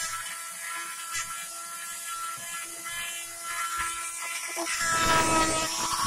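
Small motor of a handheld USB keyboard vacuum cleaner running with a steady whine while its nozzle works a car air vent. A louder rushing noise swells near the end.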